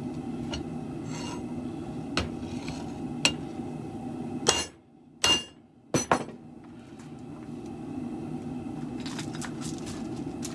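Scattered sharp knocks and clicks of shop work, with scraping, over a steady low rushing drone that cuts out for a moment near the middle.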